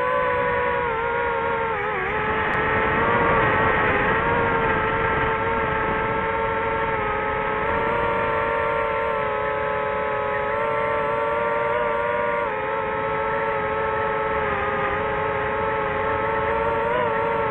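DJI FPV drone's propellers and brushless motors whining steadily in flight, with a few brief dips and wobbles in pitch.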